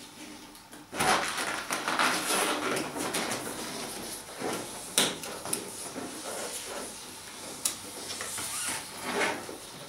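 Latex modelling balloon being knotted by hand at the neck: the rubber rubs and stretches under the fingers, with two sharp clicks partway through.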